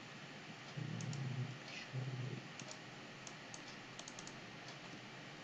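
Computer keyboard keystrokes and clicks, a few sharp separate taps in the second half with a quick run of them about four seconds in.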